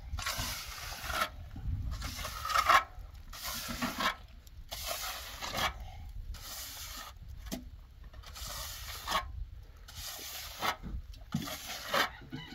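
Rhythmic scraping or rubbing strokes, about one a second, each a short burst of rasping noise with a brief pause between.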